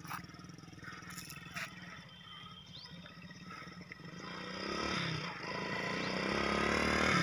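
Small motorcycle engine running as the bike rides toward the listener, faint at first and growing louder from about four seconds in. The engine runs without petrol, on gas from water mixed with 'potash' (carbide) fed in at the air filter.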